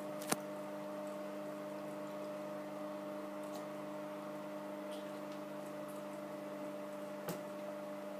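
Steady hum of a few held tones, with faint splashes and drips as a toddler moves in shallow bathwater; a sharp click just after the start and a softer one near the end.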